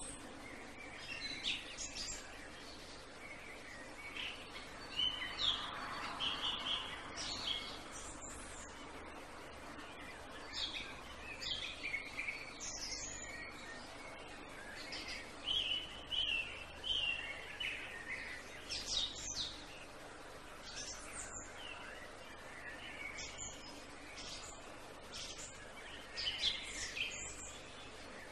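Several birds chirping and singing in short, repeated high phrases over a steady background hiss.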